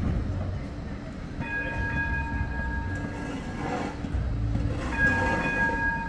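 Bombardier Flexity 2 tram sounding its warning horn: two steady blasts of about two seconds each, over a low rumble of street traffic.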